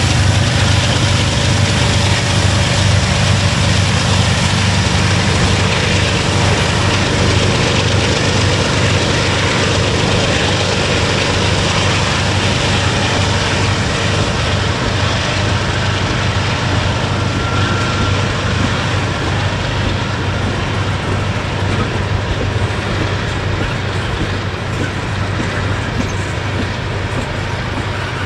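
Loaded tank cars of a crude-oil unit train rolling past on the rails, a steady rumbling noise with a strong low hum underneath, slowly getting quieter as the train pulls away.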